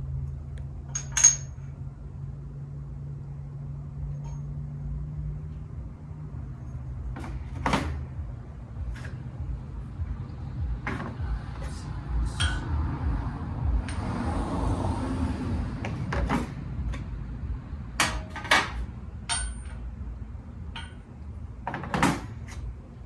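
Steel sleeves and adapters from a bearing press kit clinking and knocking as they are handled and set down, a string of sharp metallic clicks with the loudest about a second in and a short scraping stretch in the middle. A low steady hum runs underneath.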